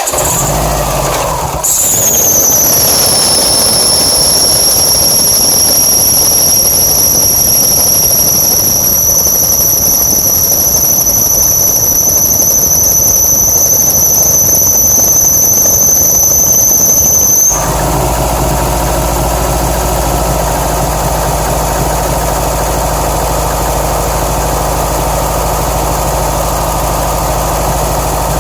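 A 2007 Subaru Impreza WRX STI's turbocharged flat-four engine, just started and running, with a loud steady high-pitched whine over it that cuts off abruptly about 17 seconds in. The engine then idles roughly, a rough idle the owner puts down to an oil-starved AVCS variable valve timing unit on the passenger side.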